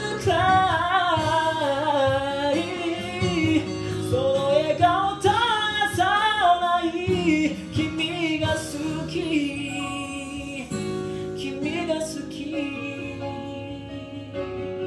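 A man singing wordless, sliding vocal runs over a guitar-led backing track, then the backing music continuing alone and slowly getting quieter as the song ends.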